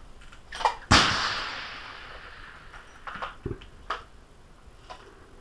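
A single shot from a .338 Edge rifle fitted with a muzzle brake, about a second in: one sharp, loud crack that echoes and dies away over about a second.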